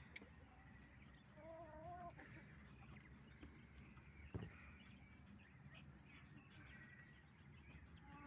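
Faint calls of penned poultry: a short warbling call about a second and a half in and a few soft high chirps, with a single knock about four seconds in.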